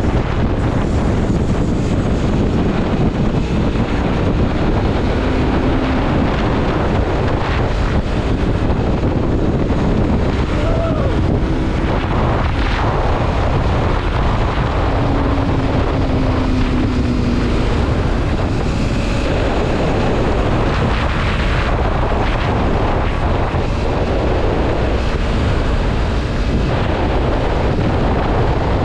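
Wind buffeting the microphone on a moving Yamaha MT-03 motorcycle, with the engine and road noise running underneath at a steady level.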